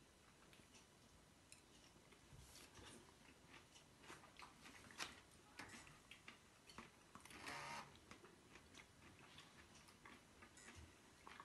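Near silence: faint room tone with scattered soft clicks and ticks, and one brief, slightly louder rustle about seven and a half seconds in.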